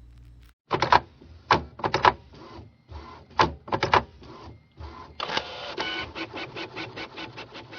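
A small machine clattering: irregular clacks and whirs, turning into a faster, steady rattle with a faint whine about five seconds in.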